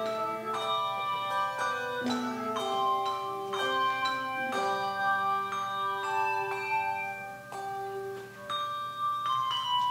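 Bronze handbell choir playing in chords: the bells are struck in succession and ring on, overlapping one another. Near the end the ringing thins to a few held notes, then fresh chords are struck.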